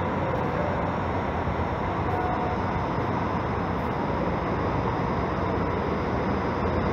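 Diesel engine of a Marcopolo G7 double-decker coach idling, a steady, even rumble.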